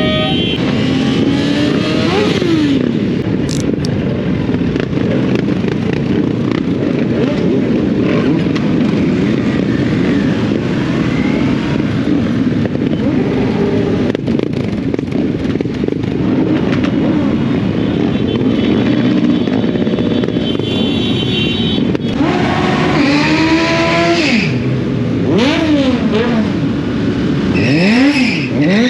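Motorcycle engine running under way with steady wind noise. Near the end the engine note rises and falls several times in quick succession as it revs and shifts.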